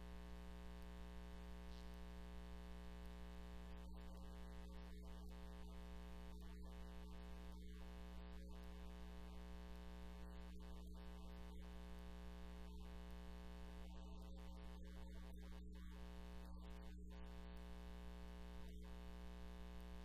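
Steady electrical hum, a low buzz with a stack of evenly spaced overtones that holds unchanged throughout.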